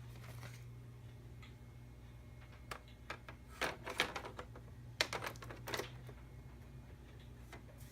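A quick run of sharp clicks and clatters, like small hard objects being handled, between about three and six seconds in, over a steady low hum.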